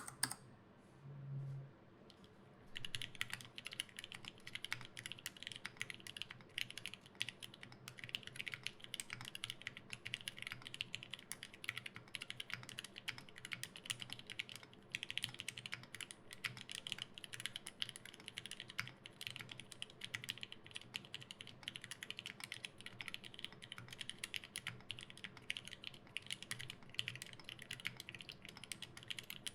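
Fast, continuous typing on an LZ Physix mechanical keyboard with lubed linear switches (Gateron Yellow stems in Gateron Black housings) on an FR4 plate, with GMK keycaps. The typing starts about three seconds in.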